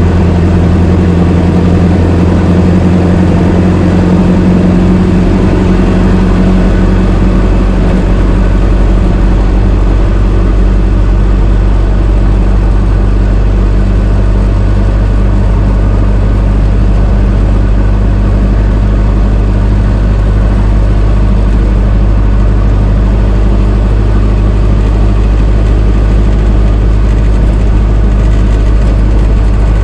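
1926 Ford Model T's four-cylinder engine running steadily while the car is driven.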